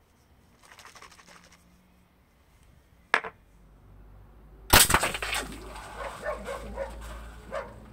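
A steel BB from an airsoft sniper rifle punctures a pressurised shaving-foam can: a loud sharp crack about five seconds in, then the foam jets out with a hiss and spatter lasting about three seconds. A single sharp click comes about a second and a half before the crack.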